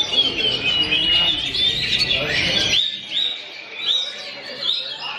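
Oriental magpie-robin (kacer) singing a varied, continuous whistled song, turning to a run of repeated upward-sweeping notes about halfway through. A low background rumble drops out suddenly near the middle.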